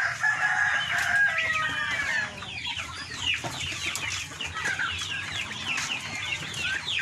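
A flock of chickens calling: a rooster crows in the first two seconds, then many short, high, falling peeps and clucks continue without a break.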